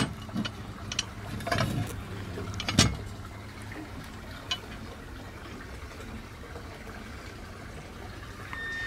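Light metal clicks and knocks in the first three seconds as a sheave is handled in an aluminium masthead top cap, then a steady hiss, with a thin high whine starting near the end.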